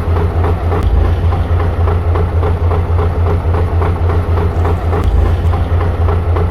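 Diesel tractor engine idling: a steady low drone with a rhythmic clatter about five beats a second.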